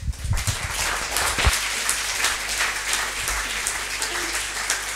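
Audience applauding, a dense, steady clapping, with a few low thumps in the first second and a half.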